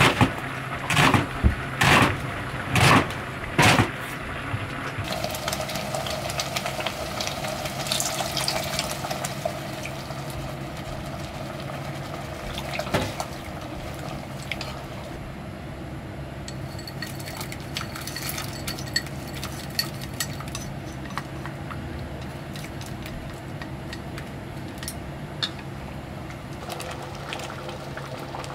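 Kitchen cooking sounds: about six sharp knocks of pots or utensils in the first few seconds, then a steady watery wash with scattered small clicks.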